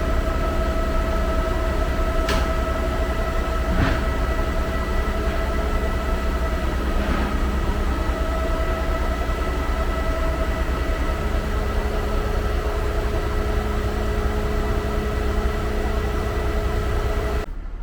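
Concrete pump truck running under load while pumping concrete: a loud, steady mechanical drone with a constant whine, broken by a few sharp knocks. The noise drops away sharply near the end.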